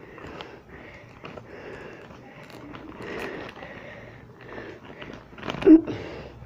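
Faint, irregular rustling and small clicks of hands handling a toy's packaging and a pair of scissors, mixed with breathy sniffs. A louder short vocal noise comes near the end.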